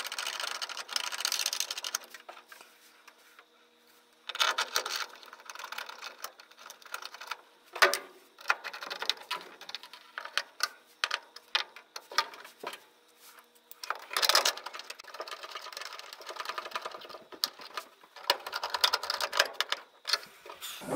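Hand tool driving screws, heard as several bursts of rapid clicking a second or two long with short pauses between. The screws fasten a replacement draft inducer motor to a gas furnace.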